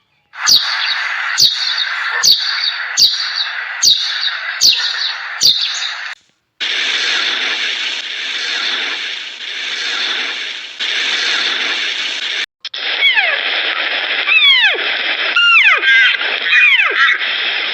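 Animal calls in short cut-together clips: a sharp falling call repeated about once a second, then a stretch of steady hiss, then a run of quick, high calls falling in pitch.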